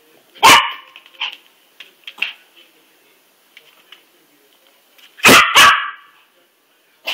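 Pomeranian barking in sharp single barks: one loud bark about half a second in, a few fainter yips, then two loud barks in quick succession about five seconds in.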